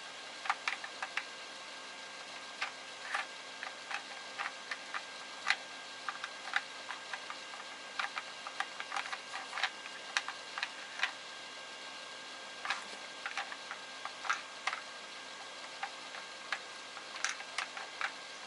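Dog puzzle toy being worked: irregular light clicks and taps of its pieces, some in quick clusters, others spaced a second or more apart.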